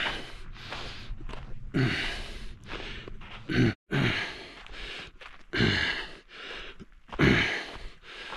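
A man breathing hard while walking under load, carrying two 30 lb kettlebells: a loud, voiced exhale that drops in pitch comes about every two seconds. Footsteps crunch on gravel between the breaths.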